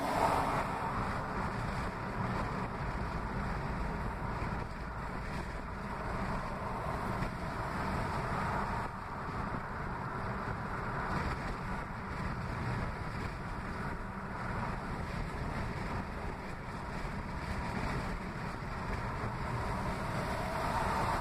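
Steady road and wind noise inside a car cruising at highway speed: tyre rumble and a rush of wind, with no distinct events.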